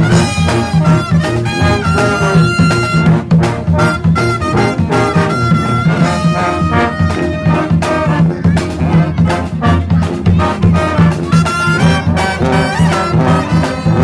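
Street brass band playing live: trombones, trumpets, saxophones and a sousaphone over a bass drum and cymbals. A pulsing bass line and steady drum beat run under held horn notes.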